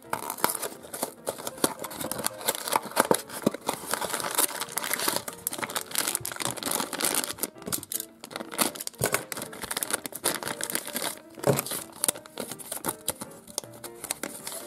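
Crinkling and rustling of a cardboard Sweet Box toy box and the plastic packet inside being handled, torn open and snipped with scissors, with background music playing underneath.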